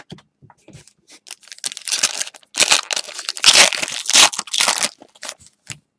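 A 2019-20 Panini Prizm basketball retail pack being torn open by hand, its wrapper crinkling and ripping. A few light clicks and rustles come first, then a quick run of tearing and crinkling in the middle that dies down to a couple of ticks near the end.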